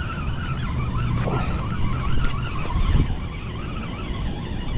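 Steady rumble of city road traffic, with a wavering higher tone over it and a thud about three seconds in.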